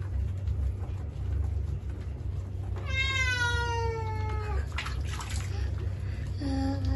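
A wet tabby cat, held in a basin of water during a bath, meows once about three seconds in: a long, drawn-out meow that slides down in pitch.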